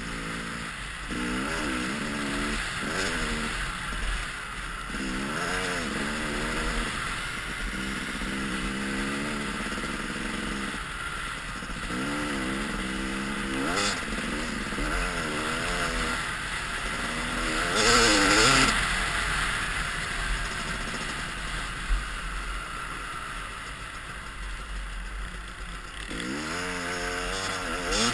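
Yamaha dirt bike engine heard from the rider's helmet, revving up and falling back again and again as it is ridden through the gears, with a steady rush of wind over the microphone. A louder rush of noise comes a little past halfway.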